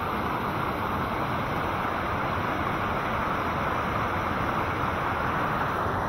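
Steady rush of water tumbling over rocks in a waterfall's cascade, an even hiss with no breaks.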